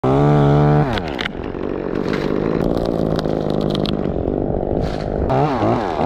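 Two-stroke chainsaw running at full throttle, then the revs drop just before the one-second mark and it runs on at lower revs. A couple of sharp knocks come around one second in, and there are quick rising and falling throttle blips near the end.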